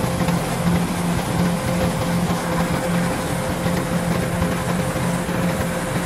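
Kubota DC105 rice combine harvester running steadily, its engine giving a low, slightly pulsing hum under a steady mechanical noise.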